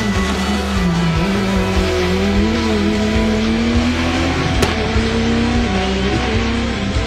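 Rally car engine revving hard, its pitch rising and falling, mixed with background music.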